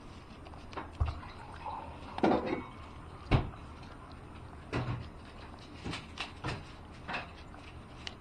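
Hollow plastic slow-feeder treat balls being nosed and pawed by a dog, giving irregular knocks and clicks on the mat, with a louder rattle of kibble inside about two seconds in.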